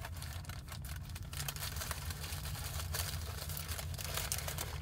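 Paper sandwich wrapping crinkling and rustling as it is handled and unwrapped, in many irregular crackles, over a steady low hum.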